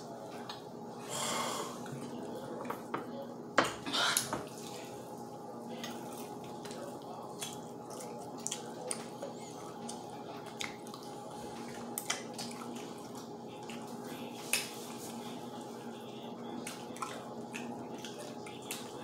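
Close-up eating sounds of crispy fried chicken: the coating torn apart by hand and chewed, heard as scattered sharp clicks, crunches and mouth smacks, with two short crunchy bursts in the first few seconds. A faint steady hum runs underneath.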